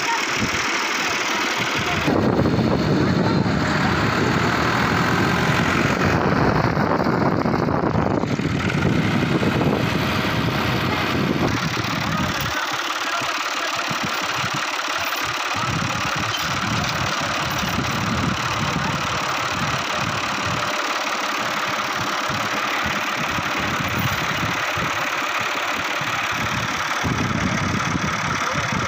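Tractor diesel engine running steadily, louder for several seconds starting about two seconds in.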